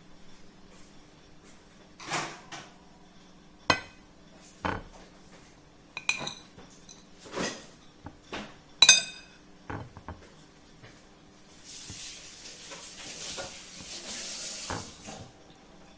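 Dishes clinking and tapping: a dozen or so separate clinks and knocks, two of them sharp and ringing. Near the end comes a soft rustling hiss lasting about three seconds.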